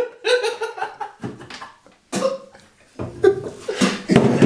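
A man gagging and retching over a bowl, his gag reflex set off by a foul-tasting jellybean, in irregular throaty heaves with a short pause in the middle. Another man laughs alongside.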